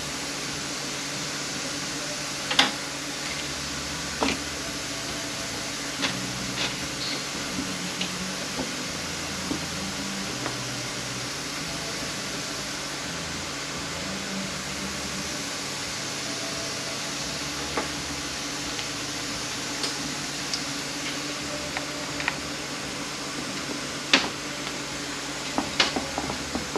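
Hand tools and metal parts clicking and knocking now and then against an automatic transmission being taken apart, over a steady background hum. The sharpest knocks come about two and a half seconds in and again near the end.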